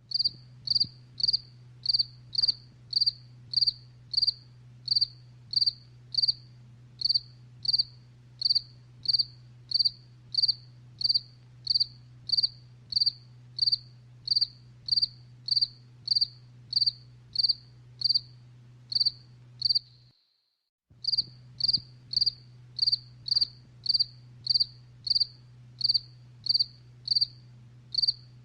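A cricket chirping in an even rhythm, about two and a half short high chirps a second, over a faint low hum. The sound cuts out completely for about a second some twenty seconds in, then the chirping resumes.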